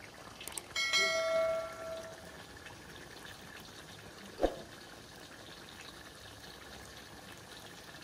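A piece of metal cookware struck once about a second in, ringing with a clear metallic tone that fades over about a second and a half. A single sharp knock follows about halfway through, over a faint steady hiss.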